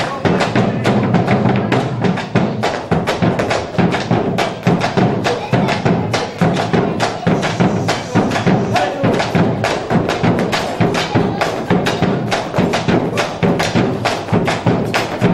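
Argentine folk music playing, with quick, even percussive strokes several times a second over the instruments.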